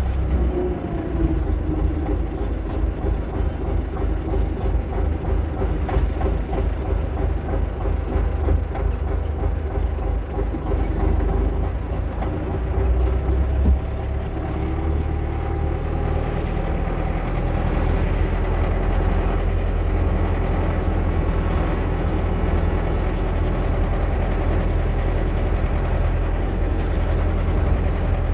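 Tractor diesel engine running under way, a steady low rumble with clatter.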